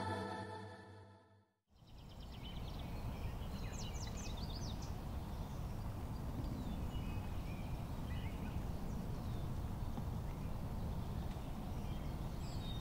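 Ambient electronic music fades out in the first second and a half, then gives way to outdoor ambience: a steady low rumble with birds chirping now and then.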